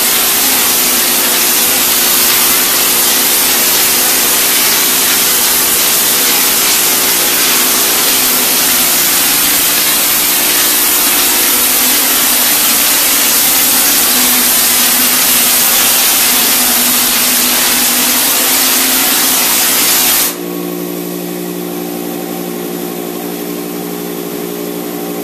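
Drywall texture spray gun hissing loudly as a commercial texture rig sprays knockdown texture onto a wall, over the steady hum of the rig's pump. About 20 seconds in the spraying stops suddenly and only the pump's hum remains.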